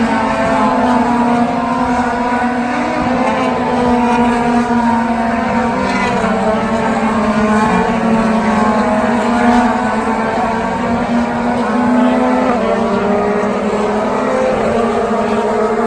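A field of IndyCars, each with a 2.2-litre twin-turbo V6, running together at steady, moderate revs. Several engine notes overlap and waver slightly without any sharp revving.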